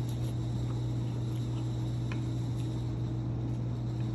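A steady low hum with no break or change.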